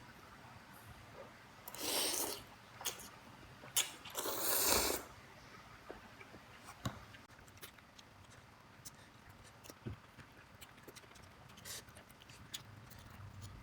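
Close-miked eating of instant noodle soup: two loud, noisy sucking intakes of air, one about two seconds in and a longer one about four to five seconds in, with scattered small clicks and quiet chewing between them.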